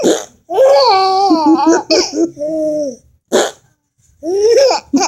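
A baby laughing in several bursts, with a long, high, wavering laugh starting about half a second in and shorter laughs after it.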